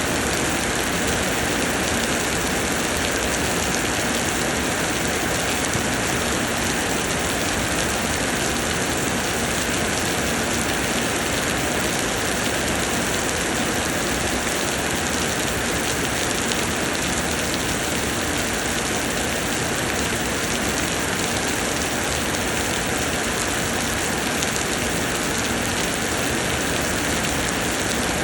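Summer rain pouring down steadily: a dense, even hiss of heavy rainfall.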